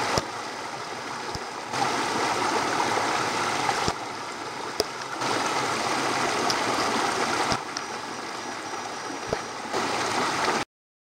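Shallow river rushing over rocks and stones, a steady water noise that steps louder and quieter several times, with a few sharp clicks, and cuts off suddenly near the end.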